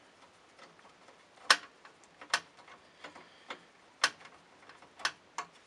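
Sharp metallic clicks, about five of them spaced irregularly around a second apart, as small screws and a screwdriver are worked at the Macintosh 512K's sheet-metal chassis frame.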